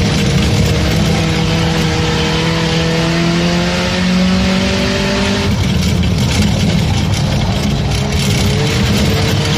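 Race car engine running hard, its pitch climbing steadily for about five seconds, then dropping off sharply and climbing again near the end.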